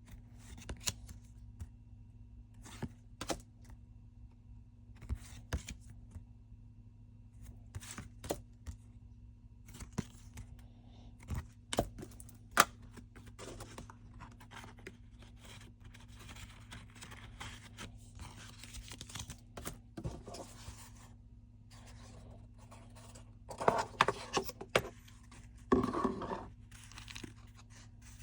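Hands unwrapping a CD: plastic wrap being torn and peeled, with scratchy rustling and sharp clicks of the case being handled. A louder stretch of rustling and scraping comes near the end.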